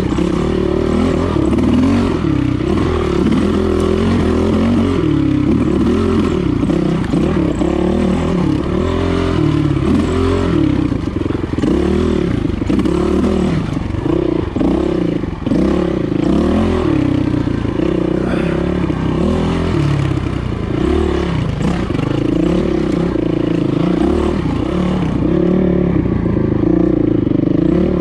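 Dirt bike engine running under constant throttle changes, its pitch rising and falling every second or two as the rider works through tight, technical single-track.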